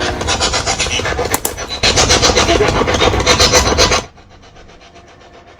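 Ghost-hunting spirit box sweeping through radio stations, giving rapid choppy bursts of rasping static that drop off sharply about four seconds in.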